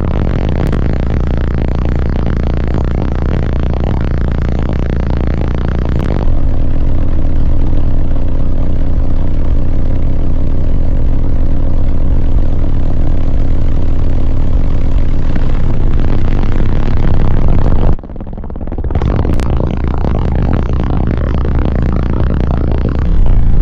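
Very loud bass-heavy music played through a car-audio system of six 18-inch Crossfire subwoofers on 52,000 watts of amplification, with deep bass notes throughout. The sound steps up about six seconds in, cuts out for a moment a little past halfway, then builds back up and grows louder near the end.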